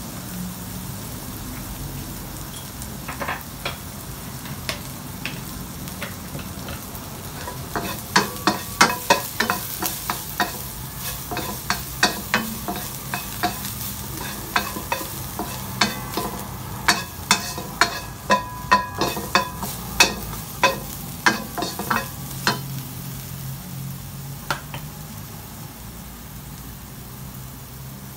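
Wooden spatula stirring chopped garlic in a nonstick wok over a light sizzle of frying, with many quick scrapes and knocks against the pan, thickest through the middle stretch and sparse near the start and end.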